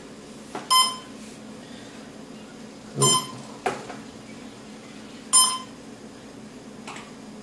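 Short electronic beep, three times, about two and a half seconds apart.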